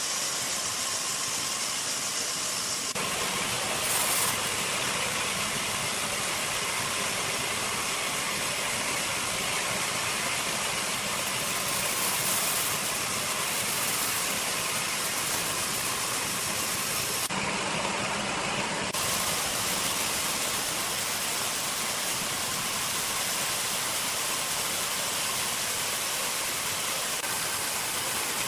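Sawmill machinery running with a steady, dense mechanical noise. The sound changes abruptly about 3 seconds in and again about 17 and 19 seconds in.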